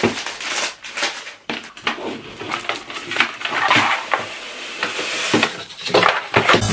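Cardboard box scraping and rustling as it is handled and slid up off a plastic-wrapped figure box, with a few sharp knocks of cardboard being handled.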